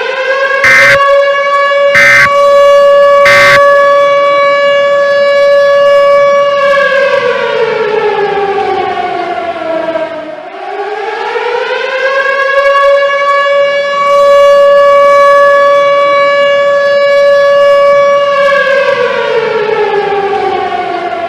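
Civil defense siren sounding two long wails, each rising in pitch, holding steady for several seconds, then falling away; the second wail starts about ten seconds in. Three short sharp clicks come in the first few seconds.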